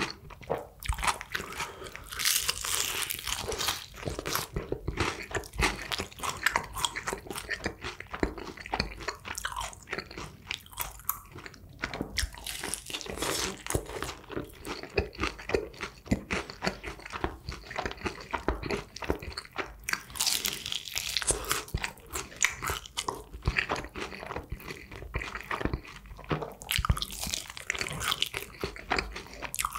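Close-miked eating of glazed Kyochon Honey Combo fried chicken: crisp crunching bites and chewing, with louder bursts of crackly crunching a few times.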